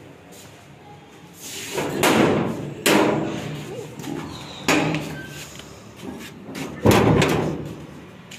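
A series of loud bangs and knocks, four in about five seconds, each dying away over about a second; the loudest comes near the end.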